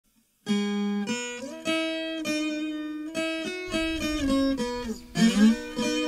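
Instrumental music on a viola caipira (Brazilian ten-string guitar): a plucked melody of quick single notes that starts about half a second in, with a few sliding notes near the end.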